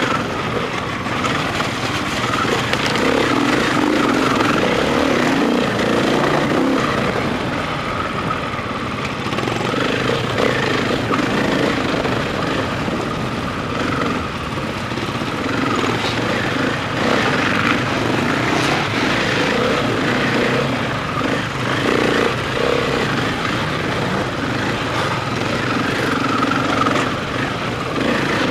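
Enduro motorcycle engine heard from the rider's helmet camera, revving up and down without a break while riding a rough forest trail.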